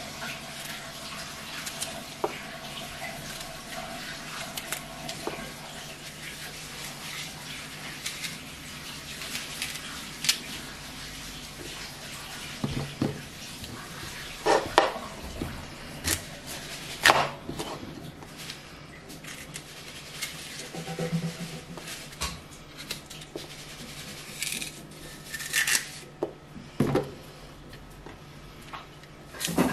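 Small knife cutting and coring apples over a plastic chopping board: scattered small clicks and knocks, a handful of them louder, over a steady low hum.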